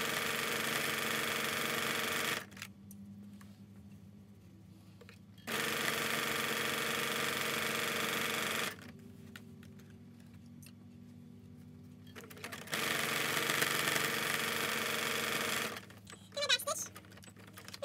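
Electric sewing machine stitching a seam through layers of fabric, running steadily in three stretches of about three seconds each, with short pauses between as the fabric is pulled round.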